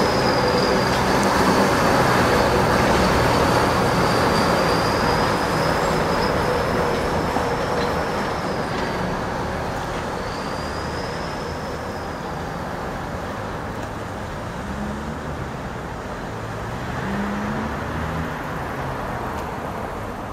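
Heavy KrAZ truck and a trolleybus driving past in street traffic: a steady diesel engine and tyre noise, loudest in the first several seconds and then fading, with a thin high whine over the first dozen seconds.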